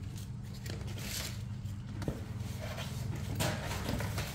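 Scattered light clicks and rustles from handling and operating a laptop, over a steady low hum.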